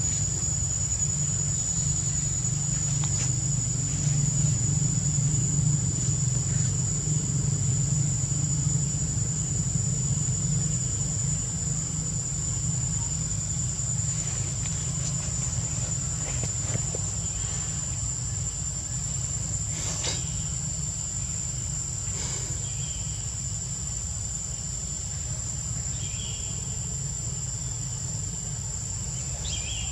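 Steady high-pitched drone of forest insects, unbroken throughout, over a low rumble that eases off about halfway. A few faint clicks and short chirps come near the end.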